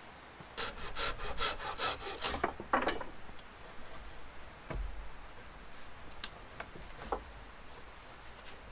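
Wood rasping in quick back-and-forth strokes, about four a second for a little over two seconds, followed by a few scattered knocks as the wooden poles of a roof frame are worked into place.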